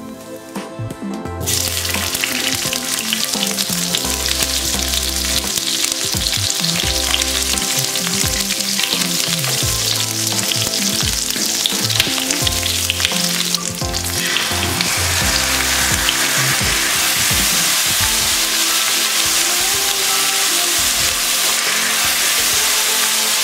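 Cumin seeds, then onion petals, diced capsicum and chopped garlic sizzling in hot ghee and butter in a frying pan, stirred with a wooden spatula. The sizzle starts a second or two in and gets louder a little past halfway.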